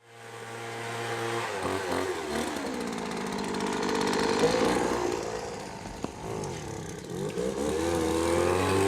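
An engine running and changing speed: steady at first, then its pitch falls and rises several times and climbs again near the end.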